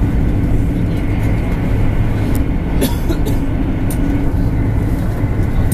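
Steady running noise heard inside the cabin of a 200 series Shinkansen train at speed: a loud, low rumble with a faint steady hum over it, and a few brief clicks around the middle.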